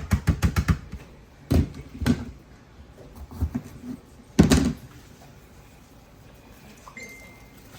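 Kitchen handling knocks: a quick run of about six sharp taps, then a few heavier thumps on a countertop, the loudest about four and a half seconds in.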